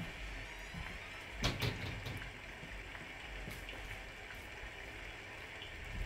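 Steady rain falling, an even hiss. About one and a half seconds in there are two quick thumps close together.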